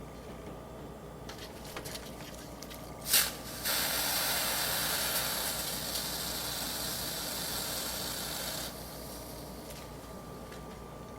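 Can of compressed-air dust spray held upside down and sprayed onto a heated fridge dent: a short loud puff about three seconds in, then a steady hiss for about five seconds that stops abruptly. Held upside down, the can sprays out its cold liquid propellant to chill the heated metal.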